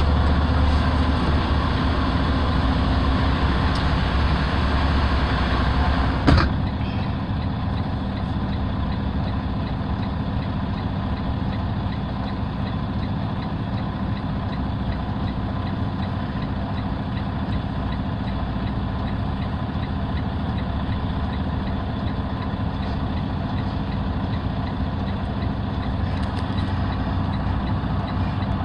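Truck's diesel engine idling steadily, heard from inside the cab. A sharp click about six seconds in, after which the idle runs on a little quieter.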